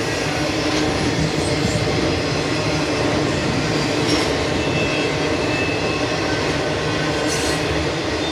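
Freight train cars of a domestic intermodal train rolling past close by: a steady rumble and clatter of steel wheels on rail.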